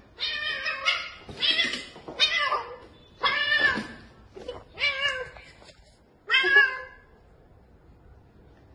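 Domestic cat meowing: a run of about seven loud meows, some bending in pitch, stopping about seven seconds in.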